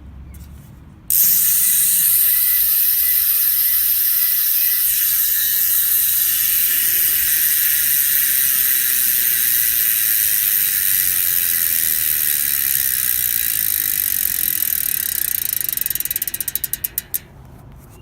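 Freehub ratchet of a Stan's NEO Ultimate rear hub (six pawls on a 30-tooth drive ring, 72 points of engagement) buzzing as it freewheels. It starts suddenly about a second in as a steady, high-pitched buzz, then slows into separate clicks and stops near the end.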